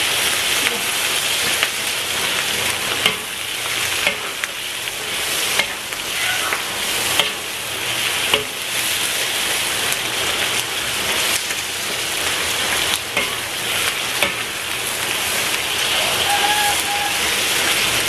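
Curly green chillies sizzling as they fry in hot oil in a wok, half-cooked, with a metal spatula clicking and scraping against the pan about every second as they are stirred.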